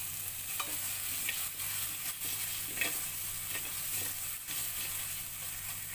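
Onion, garlic and ginger paste sizzling in hot mustard oil in a metal kadhai as it browns, with a steady sizzle and a metal spoon stirring and scraping the pan now and then.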